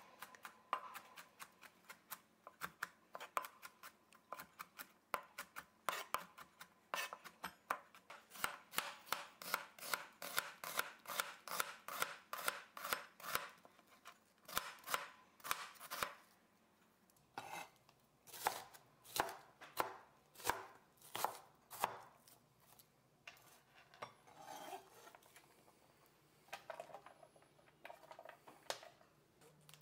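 Chef's knife chopping garlic and slicing onion on a plastic cutting board: a long run of light, sharp knocks about two to three a second, with a few short pauses.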